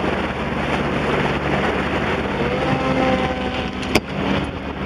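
Pontoon boat's motor running steadily under heavy wind noise on the microphone. Midway, an RC seaplane's motor whine passes faintly, and a single sharp click comes near the end.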